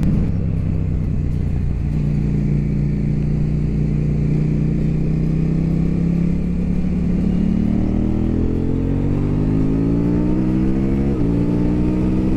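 KTM 790 Duke's parallel-twin engine heard from the rider's seat, running at a steady pitch and then pulling harder with a rising pitch. About eleven seconds in the pitch drops sharply at an upshift and starts to climb again.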